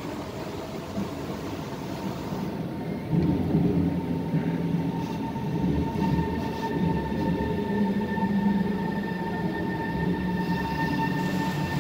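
SMRT C151 electric train running into a station: a rumble from the wheels and car body with a steady electric whine from the traction equipment, several high tones together. The whine cuts out shortly before the end, as the train comes to a stop.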